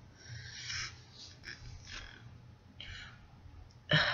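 Quiet sniffing through a stuffy nose, a few soft breaths, and a light click of plastic Lego pieces being handled, with a louder short noise near the end.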